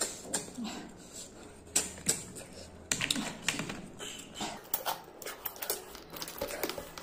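Close-miked eating sounds: irregular wet clicks and smacks of chewing, with a cluster of them about three seconds in.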